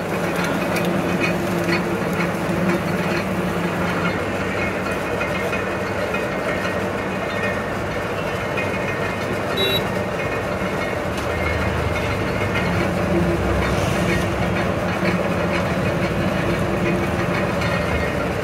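Sugarcane juice crushing machine running with a steady mechanical drone.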